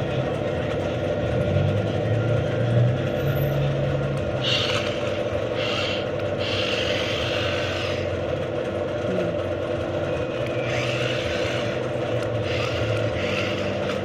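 Remote-control toy car driving on a concrete floor: its small electric motor whirs and the wheels scrape in several bursts, over a steady hum.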